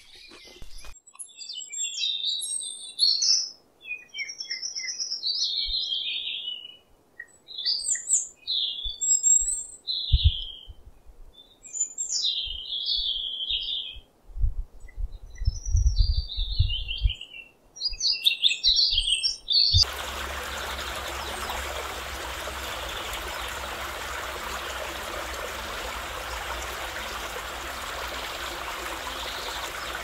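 High chirping and twittering calls, bird-like, in short rapid phrases that often sweep downward. About two-thirds of the way through they stop abruptly and are replaced by a steady, even rushing noise, like wind or running water.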